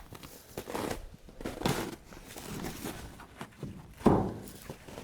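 Irregular crunching and scraping noises, with a louder scrape about four seconds in.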